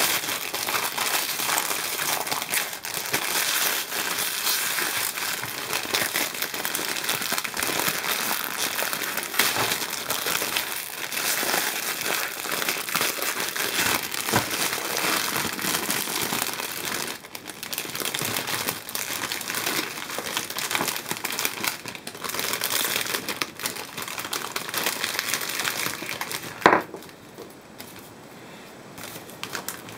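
Clear cellophane bag and the foil-wrapped chocolate eggs inside crinkling steadily as hands open the bag and tip the eggs out. A single sharp knock near the end, then only faint rustling of foil wrappers.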